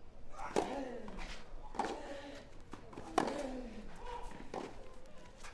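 A tennis rally: racket strikes on the ball about every 1.3 seconds, each followed by a short grunt from the player hitting it, with lighter ball bounces in between.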